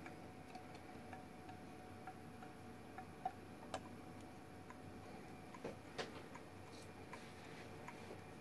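Small gamma Stirling engine running on the heat of a mug of hot water, its piston and crank linkage giving a faint tick about twice a second as the flywheel turns. A few louder knocks come from hands settling the engine's metal base on the mug about three and six seconds in.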